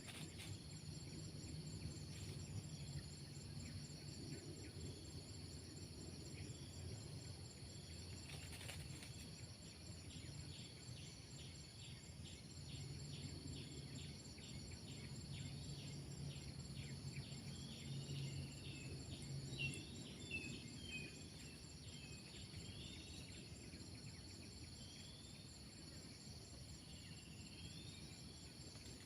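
Crickets trilling steadily at several high pitches, with a run of quick chirps that come faster and faster through the middle, then scattered short chirps.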